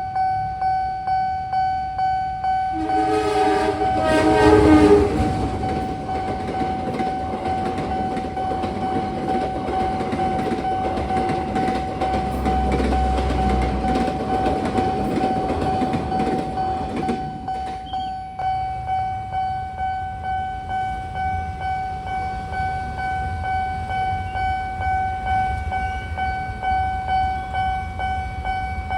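Railway level-crossing alarm ringing steadily at about two strokes a second, as a train sounds its horn about three seconds in and then runs past over the rails for roughly twelve seconds; once the train has gone the alarm rings on alone.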